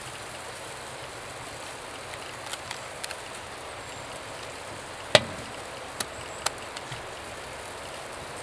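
Food-preparation knocks: a few light clicks, then one sharp knock about five seconds in and two lighter knocks after it, over a steady hiss.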